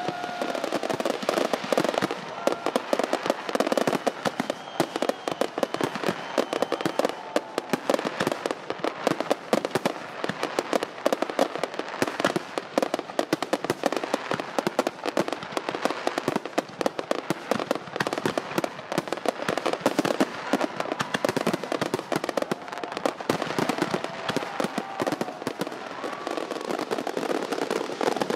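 Fireworks going off in a dense, continuous barrage of crackles and pops.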